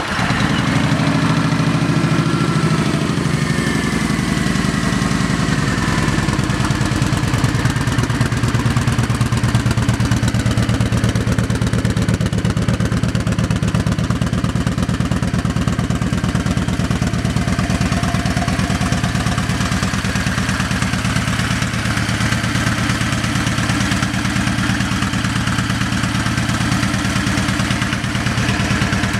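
Kawasaki Vulcan 1700's 1700cc liquid-cooled V-twin idling steadily in neutral through an aftermarket Vance & Hines exhaust.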